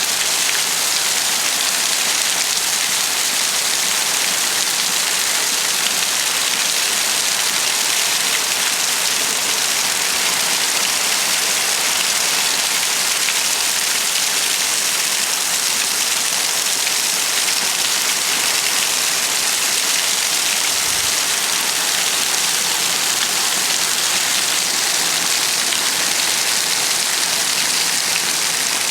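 Steady rain falling and pattering on surfaces, a constant hiss with no let-up.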